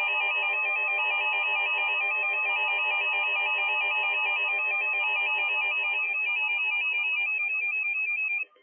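Electronic emergency alert tone, of the kind that comes before a broadcast tornado warning: a steady, many-toned electronic sound with a fast warble in its upper tones. It cuts off abruptly near the end.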